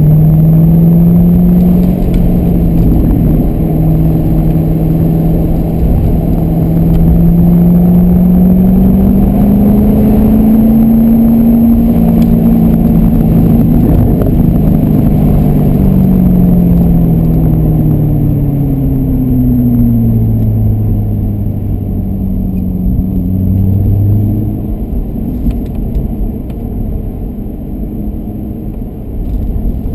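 Corvette Grand Sport's V8 engine heard from inside the cabin on track, its pitch climbing under acceleration for about ten seconds, then falling. About 24 seconds in, the engine drops lower and quieter as the car slows.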